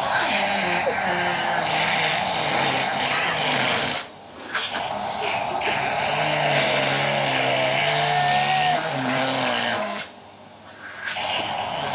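Vacuum cleaner running with a loud, steady rushing noise. It cuts out briefly twice, about four seconds in and again near the end, and each time starts back up.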